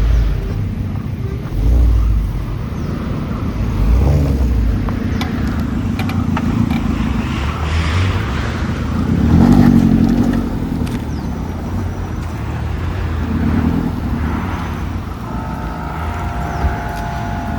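An off-road 4x4's engine running as it drives slowly along a rough trail, its note rising and falling several times, with scattered knocks and clatter. A steady whistle-like tone sounds for about two seconds near the end.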